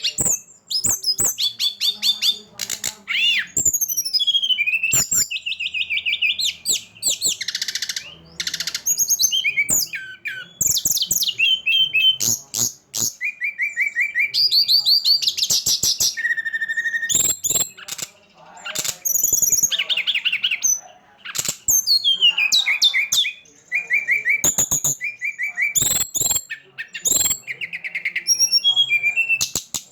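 Songbird singing a fast, varied song of quick chirps, rising and falling whistles and trills, almost without pause.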